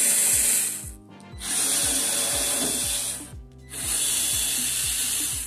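Cordless electric screwdriver running in three spurts of about two seconds each, with short pauses between, as it backs out the screws holding on a desktop computer's case cover.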